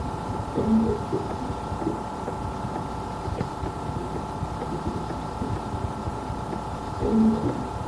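A girl's deep, low cough during an asthma attack, heard twice about six seconds apart. A steady hum and rumble continues underneath.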